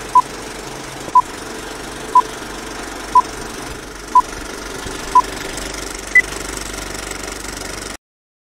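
Old-film countdown leader sound effect: the steady clatter of a film projector running, with a short beep once a second, six in a row, then one higher-pitched beep. The sound cuts off suddenly about eight seconds in.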